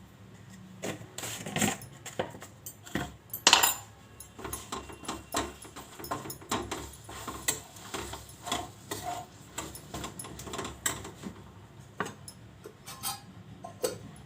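A metal spoon and kitchen utensils clinking and knocking against a pan and bowls in irregular taps, a few each second, the loudest about three and a half seconds in.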